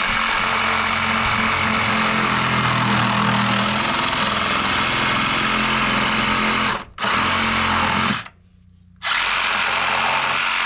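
Cordless reciprocating saw cutting through copper pipe. It runs steadily, dips briefly about seven seconds in, stops about a second later, then starts again and cuts until near the end.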